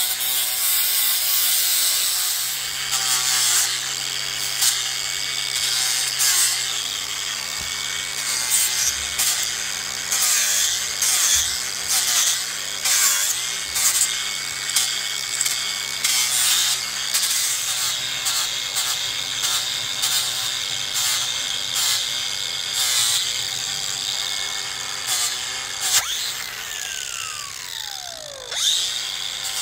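Cordless angle grinder with an abrasive disc grinding cedar: a steady high motor whine that sags briefly each time the disc is pressed into the wood, over a rasping scour. Near the end it is switched off and the whine falls away as the disc spins down.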